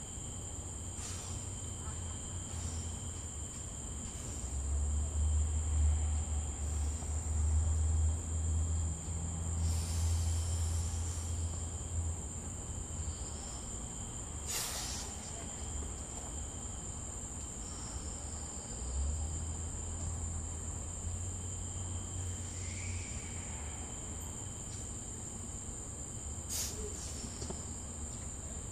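Crickets trilling steadily in a high, even chorus. A low rumble swells twice, and two sharp clicks come about halfway through and near the end.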